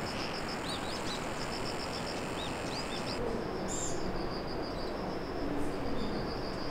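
Outdoor natural ambience: short chirping bird calls over a steady background rush, with a fast, even, high-pitched pulsing trill. The chirps stop about three seconds in, and the rush and the trill carry on.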